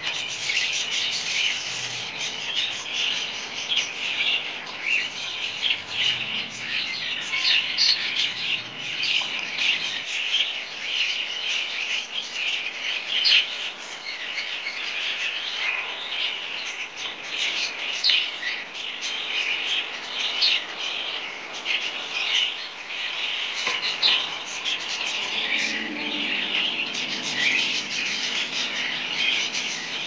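A brood of parrot nestlings calling together in the nest: a constant raspy chattering of many short, overlapping chirps.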